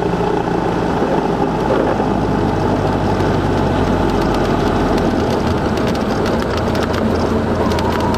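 Light propeller aircraft's engine running steadily during the takeoff roll, heard from inside the cockpit; its low note shifts about five seconds in.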